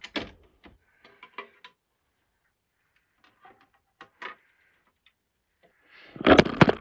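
Vinyl record and its sleeve being handled: soft scattered clicks and rustles as the disc slides out, then a louder burst of rustling and knocks near the end.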